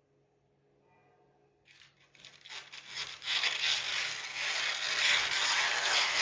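Scissors cutting through a sheet of baking paper: a steady, dry hissing slice that starts about two seconds in and gets louder.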